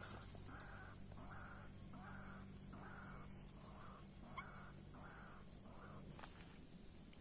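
White-breasted waterhen calling: a series of about ten harsh, evenly spaced croaking notes, roughly one and a half a second, stopping about six seconds in. A low steady hum runs under the calls and stops when they do.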